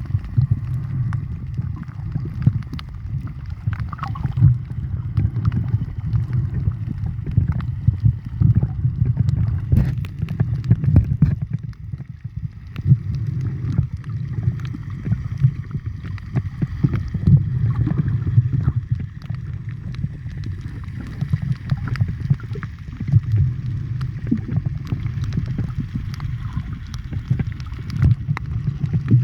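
Underwater water noise: a steady low rumble with many scattered crackling clicks.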